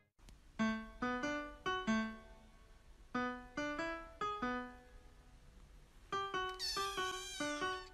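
Background music: a melody of single piano-like notes, each dying away. Near the end comes a high, slightly falling drawn-out sound lasting about a second.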